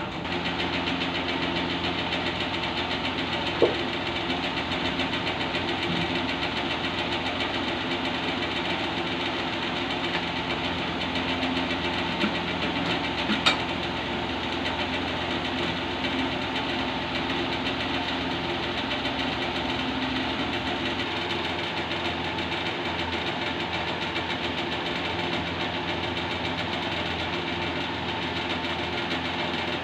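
Nafees 26 HP horizontal single-cylinder diesel engine with a large flywheel, a slow-speed engine rated at 275 rpm, running steadily. A couple of short sharp clicks stand out about 4 and 13 seconds in.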